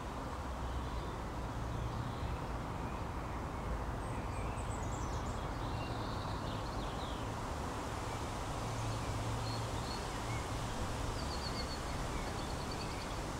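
Steady outdoor ambience, an even hiss over a low rumble, with a few faint high chirps about a third of the way in and again near the end.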